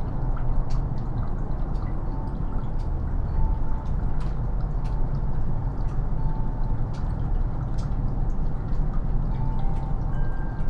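Meltwater from melting snow dripping in irregular drops, a couple a second, over a steady low rumble. Faint wind chime notes sound now and then.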